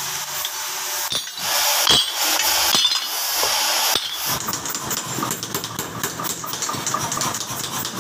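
Sledgehammer blows on a hand-held chisel cutting a steel bar: a few sharp metal-on-metal strikes over a steady hiss in the first half. From about halfway the workshop machinery's running takes over, a busy clatter with fast ticks.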